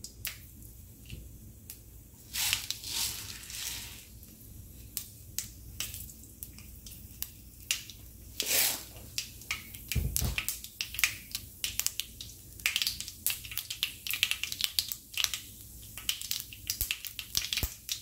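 Mustard seeds sizzling and popping in hot sesame oil in a wok. The pops are scattered at first, with a few short bursts of hiss, then come thick and fast over the last several seconds as the seeds begin to crackle, the cue for adding the next seasoning.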